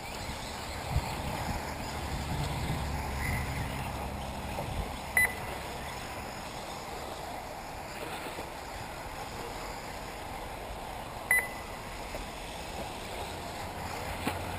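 Steady outdoor wind rumble and hiss on the microphone. Two short, high electronic beeps sound about six seconds apart, typical of an RC race's lap-timing system registering a car crossing the line.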